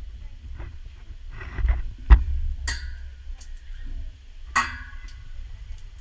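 Coins dropped onto metal, clinking twice with a bright ringing that hangs on briefly, the second clink about two seconds after the first, and a sharp knock just before the first. Wind rumbles on the microphone.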